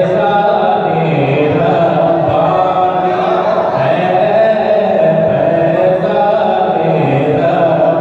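A man singing a devotional kalaam (naat) in a chanting style with long held notes, amplified through a handheld microphone.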